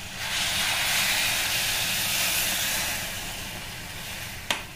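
Hot water poured into a hot steel pan of fried potatoes and masala, hissing and sizzling as it hits the oil, the hiss swelling and then slowly dying away over a few seconds. A sharp metal tap of the spoon on the pan comes near the end.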